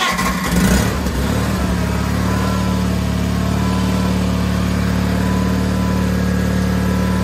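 John Deere 420 garden tractor's engine running at a steady idle after its starter was replaced.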